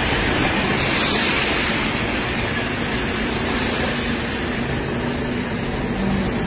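Steady, dense storm noise of a heavy downpour, rain or hail pouring down without a break, with a faint steady low hum underneath.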